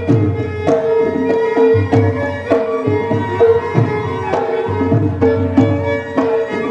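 Music with a steady drum beat, about one stroke every 0.6 seconds, over a held pitched note.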